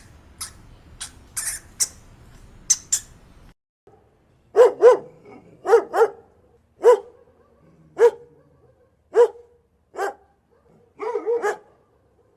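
A hamster's short, high-pitched squeaks for the first three seconds or so. Then, after a cut, a dog barks about a dozen times, singly and in pairs, ending in a quick run of barks.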